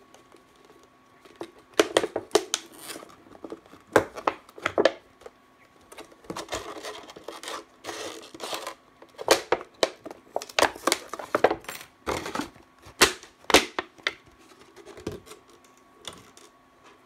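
Thin clear plastic bottle crinkling and cracking as it is cut with a craft knife and squeezed by hand: irregular sharp crackles with some scraping between them.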